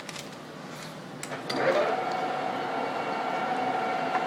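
Timemaster/Gurutzpe Super M 300/4000 gap bed engine lathe starting up: a few clicks, then about a second and a half in the spindle drive comes on and runs steadily with a steady whine.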